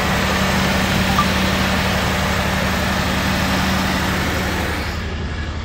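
1990 Ford Ranger's 2.9-litre V6 engine idling steadily just after starting, making a little racket, with a slight vibration that the owner puts down to worn motor mounts.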